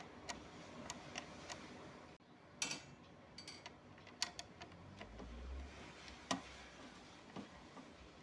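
Faint scattered clicks and light taps from hands working on a Honda Activa scooter's fuel cap, checking its metal rod and screw for looseness, with a short scrape about two and a half seconds in.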